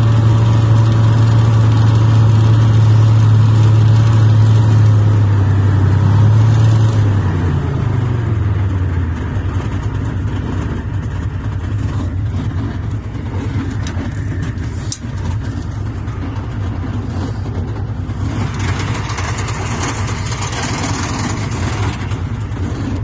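T-55 tank's V12 diesel engine running at high, steady revs, then dropping in pitch and loudness about seven to nine seconds in as it eases off. After that it keeps running at lower revs.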